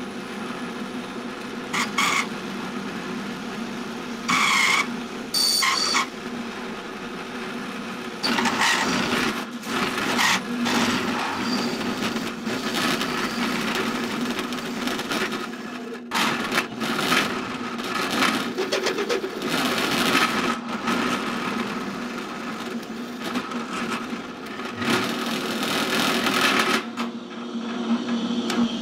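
Drill press running at about 3000 rpm, a steel washer on the spinning shaft pressed down and grinding against a steel bar: metal rubbing on metal under load, a steady hum with harsher scraping that flares up and fades several times. The friction heats the washer red hot for a friction weld.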